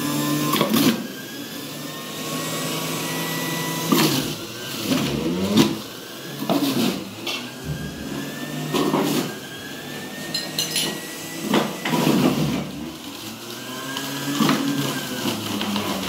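Small electric juicer running while red carrots are pushed down its feed chute and shredded. Every second or two a louder grinding burst comes as a carrot meets the cutter, and the motor's pitch drops under the load and climbs back.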